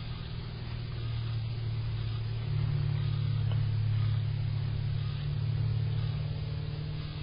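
Low steady mechanical hum, growing louder about two and a half seconds in.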